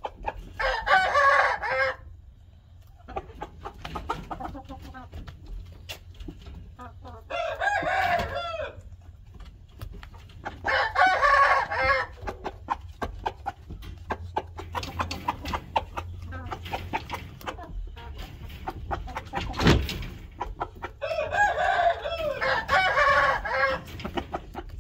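Rooster crowing four times, each crow about two seconds long, over a low steady hum. A single sharp knock comes between the third and fourth crows.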